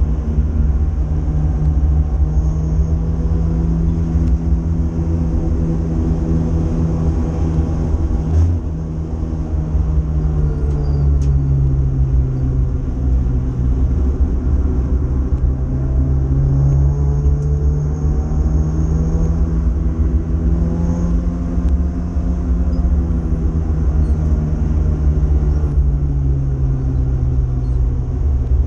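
Renault Clio 182's 2.0-litre four-cylinder engine at racing load, heard from inside the cabin: the engine note climbs and drops several times through gear changes and braking, with a brief lift about eight seconds in.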